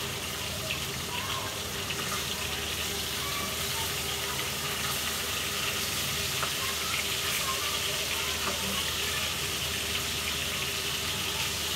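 Pieces of hilsa (ilish) fish lightly frying in a little hot oil in a pan, sizzling steadily.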